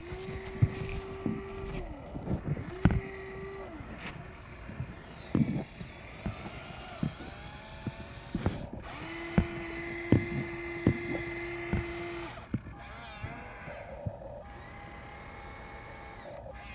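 Electric motors of a Huina 1593 RC excavator whining in spells of a second or three, three times, each spinning up, holding steady and winding down as the arm and boom move. Scattered sharp clicks and knocks come from dirt clods and stones.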